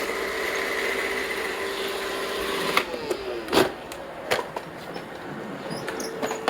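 Robot vacuum running with a steady motor whine, which stops a little under three seconds in, followed by a few separate sharp knocks.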